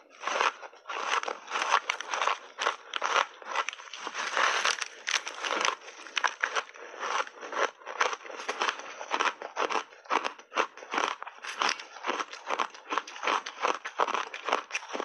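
A mouthful of reshaped ice with a crunchy matcha coating being bitten and chewed: a dense, continuous run of sharp cracks and crunches, picked up close by a clip-on microphone.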